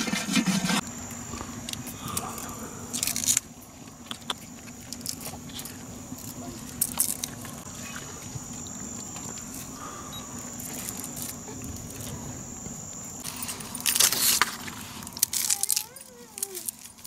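Thin wild bamboo shoots being peeled and snapped by hand: scattered sharp cracks and tearing of the husks, loudest in a burst of crackling about three-quarters of the way through. A brief stretch of pot scrubbing opens it, and a steady faint high tone runs underneath.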